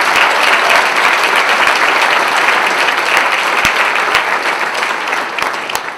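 A large audience applauding: dense, steady clapping that thins out near the end.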